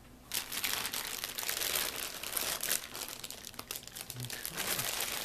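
Clear plastic bag crinkling and crackling as hands pull at it to unwrap an action figure, starting just after the beginning and continuing throughout.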